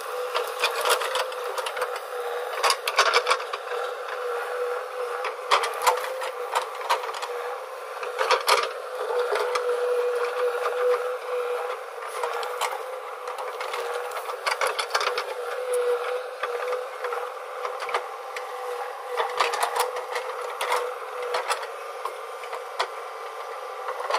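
JCB 3DX backhoe loader's diesel engine running steadily under load while it digs, with irregular knocks and clanks from the backhoe bucket and arm working the earth.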